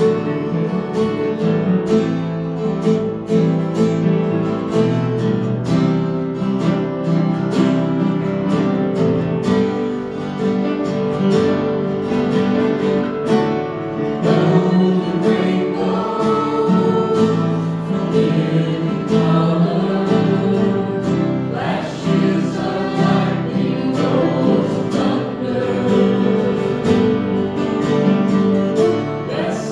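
Gospel worship music: a group of singers singing together over guitar and other instruments, with a steady beat.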